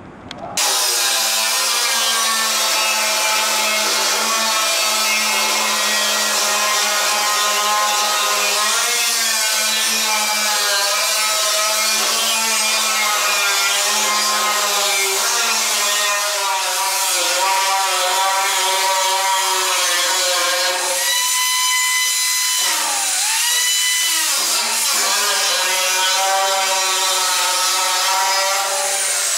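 Large angle grinder running against a steel bulkhead plate: a loud, steady, high whine that starts abruptly. The pitch of the whine wavers throughout, and sags and comes back twice about two-thirds of the way through.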